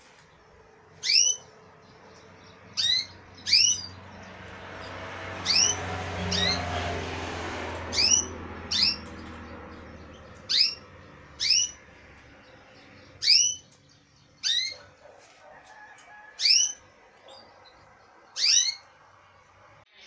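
Caged canaries giving short, loud, upward-sweeping call notes, about a dozen single calls spaced a second or two apart. A low background rumble swells and fades in the middle.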